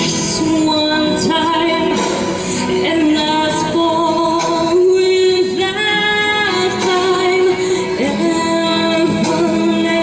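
A woman singing into a handheld microphone, amplified, over a musical accompaniment.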